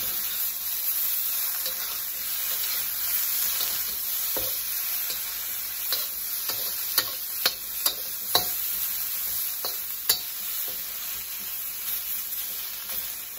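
Tofu cubes sizzling in hot oil as they are stir-fried in an uncoated wok. A metal spatula scrapes and taps against the pan, with several sharp clicks in the second half.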